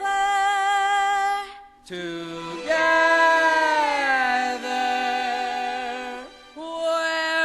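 Singers holding long sustained notes with vibrato. There is a brief break about two seconds in, a second long held phrase, and another short break near the end.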